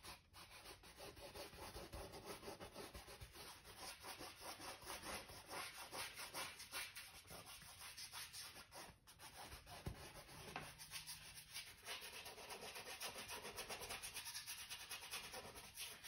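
Paintbrush bristles brushing across stretched canvas in many quick back-and-forth strokes as paint is laid on.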